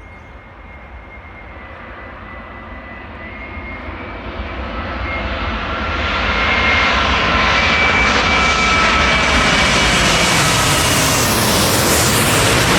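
Jet airliner on landing approach, a Boeing 787-10 with Rolls-Royce Trent 1000 engines, growing louder over about six seconds as it comes closer, then holding loud. The engine noise carries a high fan whine whose tones drift slightly in pitch.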